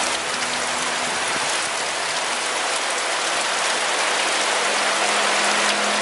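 Heavy rain falling steadily, a dense, even hiss.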